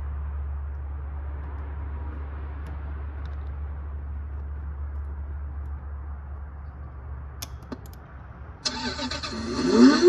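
A 24-volt Can-Am ride-on toy's electronic engine-start and revving sound effect plays through its speaker, starting loudly near the end with a rising rev. It signals that the toy has powered on once the charging port sensor wires are bridged, confirming the sensor was the fault. Before it, only a steady low hum.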